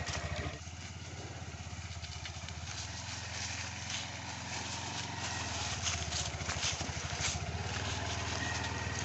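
A small engine running steadily, with a fast, even pulse and some scattered light clicks.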